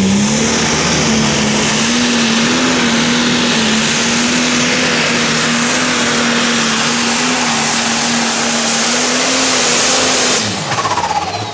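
Pulling tractor's engine running loud at full throttle down the track, holding one steady high pitch. About ten and a half seconds in it throttles back sharply, its pitch and loudness falling away as the pull ends.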